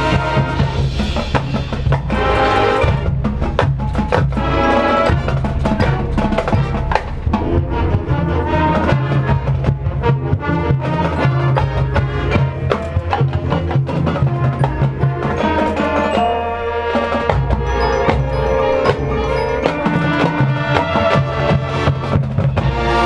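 Marching band playing its field show music: sustained pitched chords over a drumline with bass drum and pit percussion.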